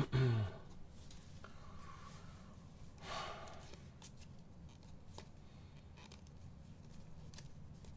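Trading cards handled and flipped through by hand: faint scattered clicks and light rubbing of card stock. A short louder sound that falls in pitch comes right at the start, and a brief rasp about three seconds in.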